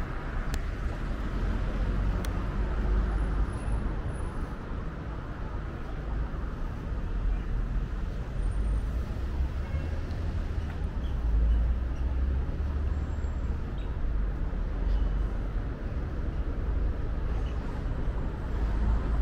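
Steady road traffic noise, an even wash of passing cars with a heavy low rumble underneath.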